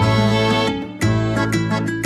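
Instrumental background music, dipping briefly just before one second in.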